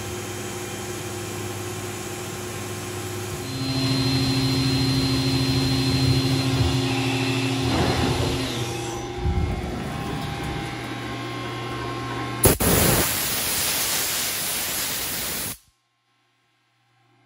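CNC milling machine running with flood coolant spraying over the cut as a ball end mill radiuses the edge of a knife blade: a steady hiss of coolant over the machine's hum, which gets louder about three and a half seconds in. About twelve seconds in a louder rushing hiss starts, then everything cuts off abruptly a few seconds later.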